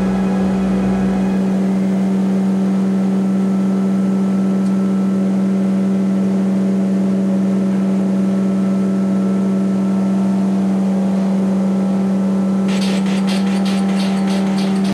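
Sand-dispensing machinery running with a loud, steady low hum. A rattling clatter joins near the end.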